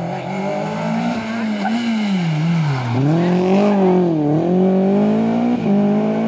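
Renault Clio rally car's engine revving hard through a tight bend: the revs drop sharply and climb again twice, then step up with a quick gear change near the end.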